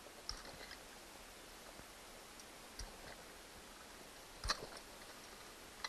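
A few sharp clicks and taps of needle-nose pliers and hands working the wiring of a table lamp's base, the loudest about four and a half seconds in, over a faint hiss.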